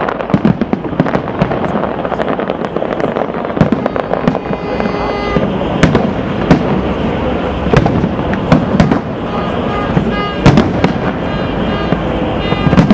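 Fireworks display: shells bursting in a steady string of bangs and crackles, the loudest bang about ten and a half seconds in.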